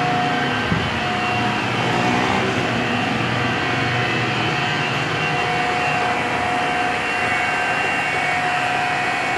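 Nippei centreless grinder running with its regulating wheel turning under test: a steady machine hum with a constant high whine over it, and a small knock about a second in.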